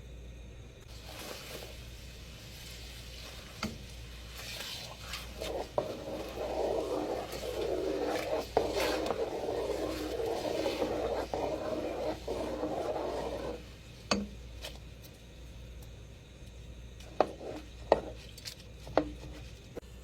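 Kitchen utensils scraping and rubbing against a pot or dish for about eight seconds in the middle, with a few sharp clinks near the end.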